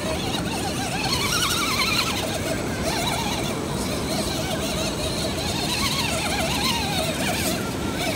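Steady rush of water pouring over a low weir, with the thin whine of the Redcat Gen 7 crawler's electric motor and gears wavering up and down in pitch as it is throttled over the rocks.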